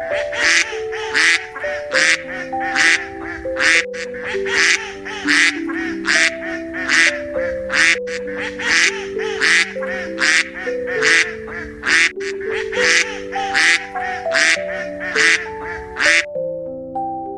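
A duck quacking over and over, about one quack every three-quarters of a second, over background music with a simple melody. The quacks stop briefly near the end.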